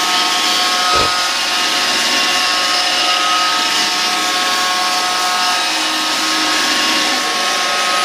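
iRobot Roomba Pet Series robot vacuum running across a wooden floor: a steady whine from its vacuum motor and brushes, with several steady tones. A single low thump about a second in.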